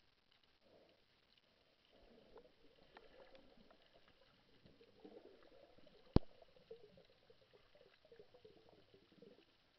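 Scuba diver's exhaled bubbles gurgling, heard underwater, with one sharp click about six seconds in.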